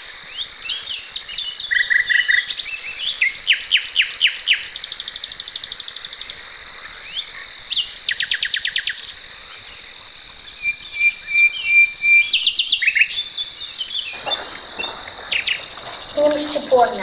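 A chorus of small birds chirping and trilling in quick runs of high notes over a steady high drone, with voices coming in near the end.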